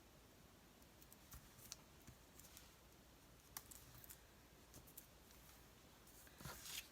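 Near silence with faint, scattered light clicks and paper handling as paper cut-outs are positioned and pressed down, growing to a louder rustle near the end.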